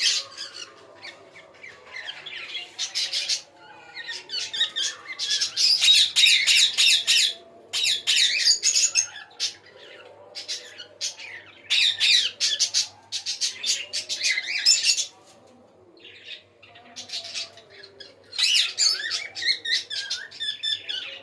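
Pet birds squawking and chirping in repeated shrill bouts of a second or so, with short quieter gaps between them.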